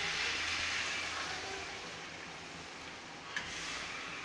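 Pan of spiced mutton sizzling and hissing after water is poured over the browned meat and oil, the hiss slowly dying down. A short clink of the spatula against the pan about three and a half seconds in.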